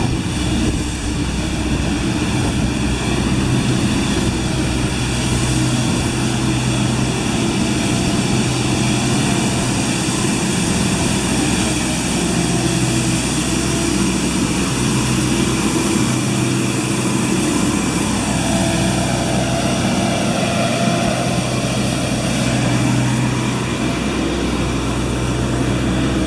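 Street sweeper's engine running with a steady drone.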